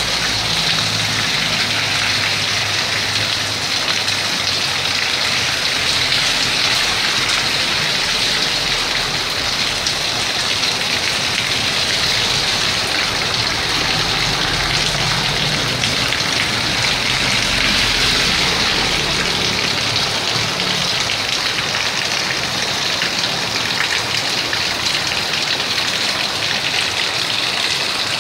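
Heavy rain pouring steadily onto a wet street and pavement. A low rumble of vehicles driving on the wet road rises around the start and again about midway.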